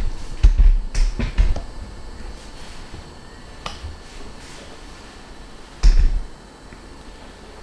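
A series of handling knocks and low thumps: several in the first second and a half, a sharp click near the middle, and a heavier thump about six seconds in.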